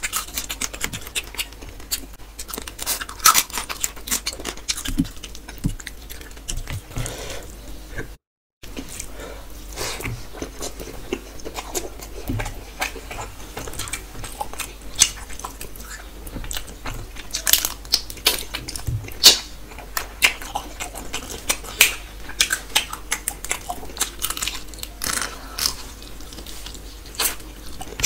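Close-miked eating sounds: chewing and crunching with many irregular crackles and wet smacks, along with fingers mixing rice and crisp fried strands on a steel plate. The sound cuts out completely for about half a second around eight seconds in.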